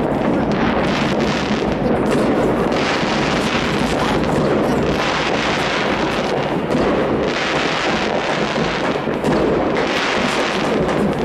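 Many distant fireworks and firecrackers going off across a city at once, blending into a steady dense noise laced with countless small bangs.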